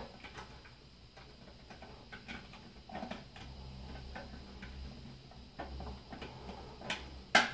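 Faint, scattered clicks and taps of a screwdriver and wire end working at a doorbell chime's screw terminals, with one sharper click near the end.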